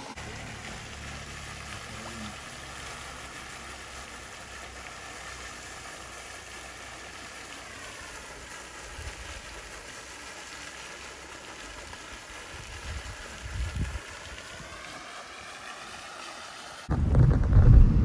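Car driving along a road, heard from inside the cabin: a steady rush of tyre and road noise with a faint tone that drops in pitch about halfway through and climbs again later. Near the end it suddenly turns much louder, with a deep rumble.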